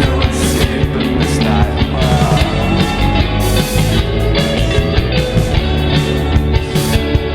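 Rock band playing an instrumental passage, with electric guitar, bass and a steady drum beat; a cymbal wash rings out a little past halfway.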